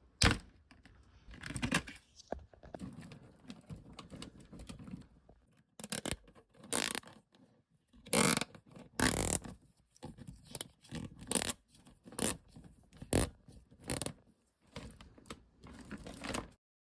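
Zip ties being handled and pulled: a dozen or so short, irregular scratchy rasps, some louder than others, stopping suddenly near the end.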